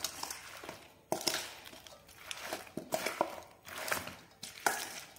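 Metal spoon stirring spice-coated chunks of galgal (hill lemon) in a stainless steel bowl: irregular scrapes and clicks of the spoon against the bowl, with the moist squish of the citrus pieces being turned over.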